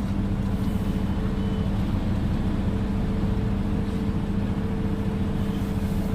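Concrete mixer truck's diesel engine running steadily, turning the drum to mix the load, with an even, unchanging hum.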